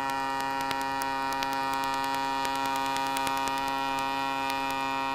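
Flexrotor unmanned aircraft's engine and propeller holding a thrust-borne hover, a steady drone made of many even, unchanging tones.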